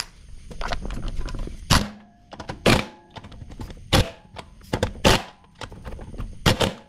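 About five sharp knocks, roughly a second apart, from hand tools working the wheel's lug nuts as the wheel is refitted.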